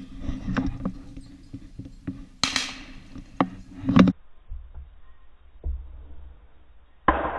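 Boots and the gun pushing through dry grass and brittle saplings: crunching, scraping and twigs snapping, with two sharp cracks, the louder about four seconds in. Near the end a single shotgun shot bangs out from farther off and its echo dies away over about two seconds.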